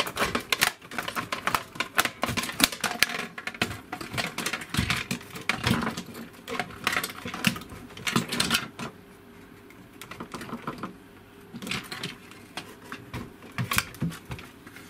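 Plastic casing parts of a Daewoo SDA1247 being handled and pulled apart: a fast, irregular run of hard plastic clicks, knocks and rattles. There is a quieter stretch past the middle, then the clicking resumes.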